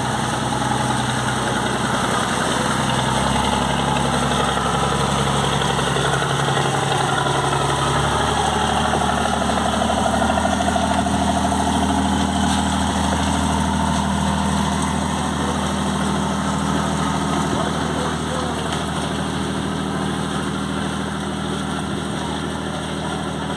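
Riverboat diesel engine running steadily, with a low, even drone whose pitch shifts about three and again about eight seconds in as the boat gets under way and pulls away.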